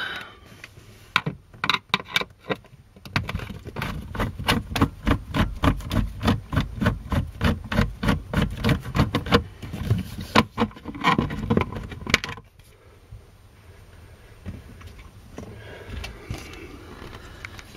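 Rapid, rhythmic clicking of a ratchet tool backing out a screw, several clicks a second for about ten seconds. It stops suddenly about twelve seconds in, and a few faint handling sounds follow.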